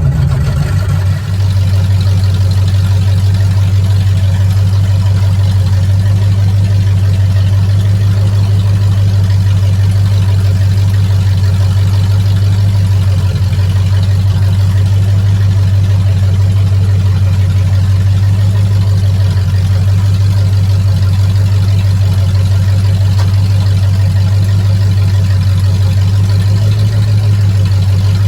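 Truck engine idling steadily with no exhaust system fitted, giving a loud, even low running note.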